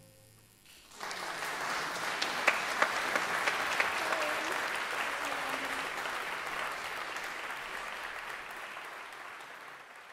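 Audience applause breaking out about a second in, after a short hush, with a few louder claps standing out early on, then slowly fading toward the end.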